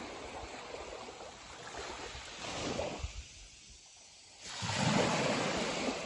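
Small waves lapping and washing onto a sandy shore of a calm sea. The wash drops away suddenly about three seconds in and comes back louder about a second and a half later.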